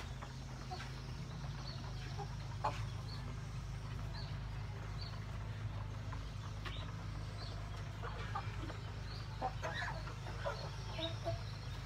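A flock of broiler chickens clucking, with short scattered calls that come more often near the end, over a steady low hum.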